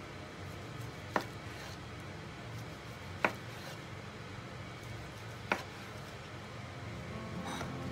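A kitchen knife slicing through a nori-wrapped sushi roll and tapping down on the cutting board three times, about two seconds apart.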